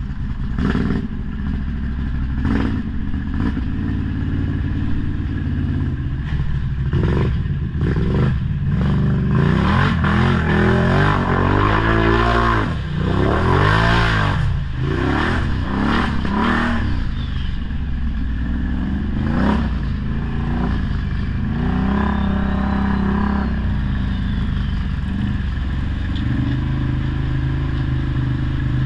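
ATV engine running under load, revving up and down repeatedly through the middle of the stretch, with scattered knocks and clatter.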